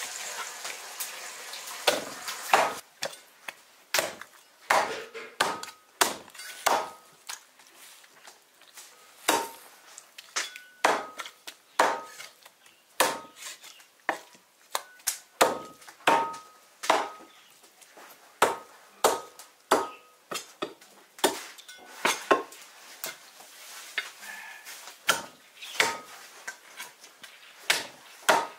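Steel cleaver chopping a whole duck into pieces through bone on a thick wooden chopping block. There are dozens of sharp chops, about one or two a second, many of them with a brief metallic ring from the blade.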